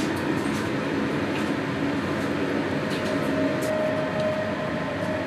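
Steady mechanical hum and hiss of running room equipment, unbroken throughout, with a faint steady tone entering in the second half.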